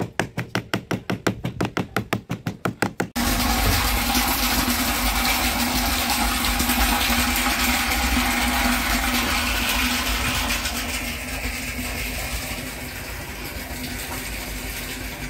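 A hammer taps rapidly on a PVC pipe, about six even knocks a second. About three seconds in it cuts off abruptly to water gushing steadily into a plastic water tank, which eases slightly in level later on.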